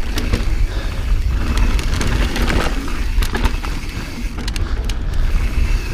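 Transition Patrol carbon mountain bike ridden fast down a dirt trail, heard from a chest-mounted camera: steady wind rumble on the microphone and tyre noise on dirt, with frequent sharp clicks and knocks from the bike rattling over bumps.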